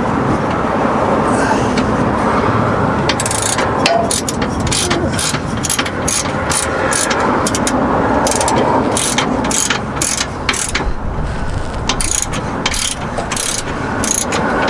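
Hand ratchet wrench clicking repeatedly as a bolt is turned, about two sharp clicks a second.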